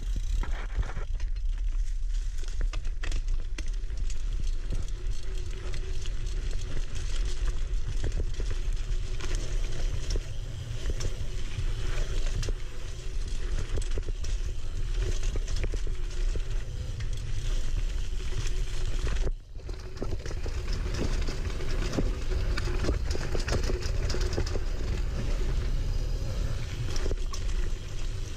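Single-speed mountain bike descending a dirt single-track trail: tyres running over dirt and roots, with the bike rattling and clattering constantly, over a steady low rumble of wind on the microphone. The sound drops out briefly about two-thirds of the way through.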